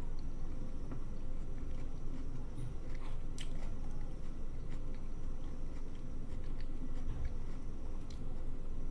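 A person chewing and biting food close to the microphone, with a few sharp clicks, over a steady faint hum.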